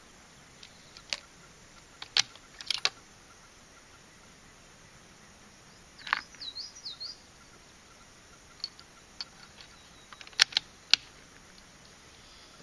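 Scattered sharp clicks and clacks from a bolt-action rifle being handled at the bench, the loudest two half a second apart near the end. A bird chirps briefly about six seconds in.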